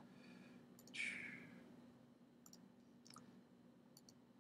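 Near silence with a faint low hum and a few soft computer mouse clicks, some in quick pairs, as blend modes are picked from a menu; a short soft hiss about a second in.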